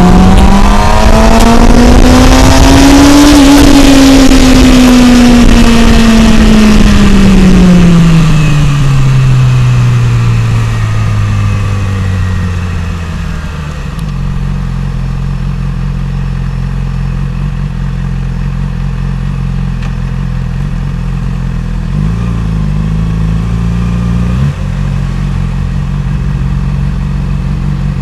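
Yamaha YZF-R6 (RJ15) 600 cc inline-four engine from the rider's seat. The revs climb for the first few seconds, with a rush of wind, then fall away steadily as the bike slows. About halfway through the note settles low and steady, near idle, with a brief blip and a sharp click near the end.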